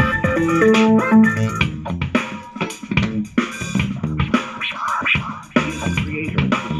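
A song playing through an AWEI Y371 Bluetooth speaker, recorded unprocessed by a microphone: clear separate melodic notes for the first second or two, then a busier section full of short beats.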